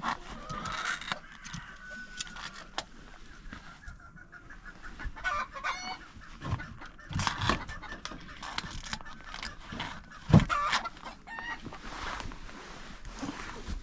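Chickens clucking and calling in short, overlapping calls, with a loud knock about ten seconds in.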